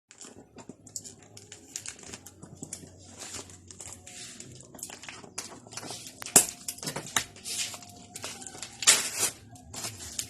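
Gift packaging being handled and opened: plastic or paper crinkling and tearing in quick, irregular bursts, with two louder rips about six and a half and nine seconds in.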